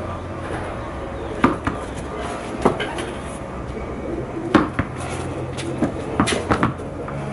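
Sharp, separate knocks on a hard tiled floor, a few seconds apart. Near the end a tennis ball drops and bounces on the tiles, giving a quick run of knocks.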